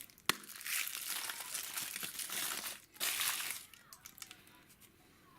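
Wrapper of a surprise egg crinkling as it is pulled off by hand, in two stretches, with a sharp click just after the start.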